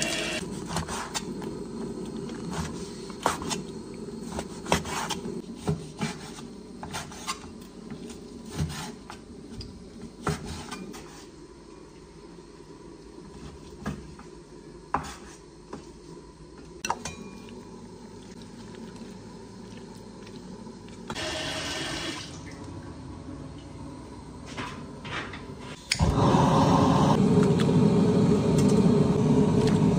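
A tap runs over raw poultry pieces in a stainless-steel sink. Then comes a long run of irregular cleaver chops on a wooden board. About 26 seconds in, a loud steady rushing noise starts suddenly from the wok as the meat goes in.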